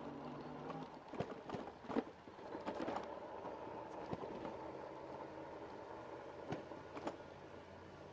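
Rad Power Bikes RadRover fat-tire electric bike rolling slowly over grass and onto stone paving, with a faint steady hub-motor hum. The bike clatters and knocks over bumps several times, mostly in the first three seconds and twice more near the end.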